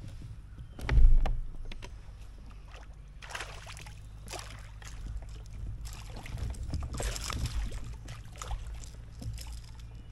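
A hooked bass thrashing and splashing at the surface beside a kayak, in two rounds of splashing. A dull thump about a second in is the loudest sound.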